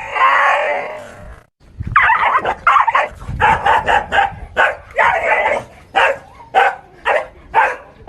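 A dog gives a drawn-out cry that fades out about a second in. After a short pause it barks rapidly and repeatedly, two to three barks a second, to the end.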